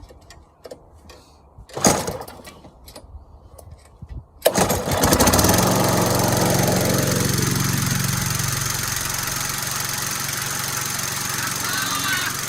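Petrol lawn mower being pull-started: a short unsuccessful pull about two seconds in, then about four and a half seconds in the engine catches and keeps running steadily. It now keeps running after its fuel system was cleaned out; before, it would start but not stay running.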